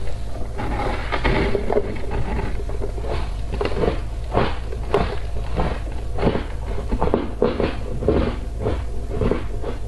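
Thin, flaky ice being bitten and chewed close to the microphone: a run of crisp crunches, about two a second, over a steady low rumble.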